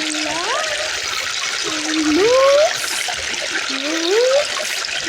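A person's voice making slow, rising sung or hummed slides, three or four of them, over a steady hiss.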